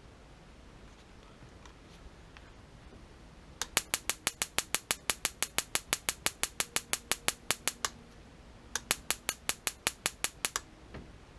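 Homemade 6-volt high-voltage spark generator firing a spark rod, snapping in rapid, evenly spaced clicks of about seven a second. The first run lasts about four seconds; after a short pause a second run lasts about two seconds. The igniter is sparking properly.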